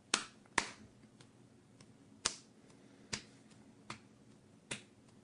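A series of about six sharp, short snaps or clicks, irregularly spaced roughly half a second to a second apart.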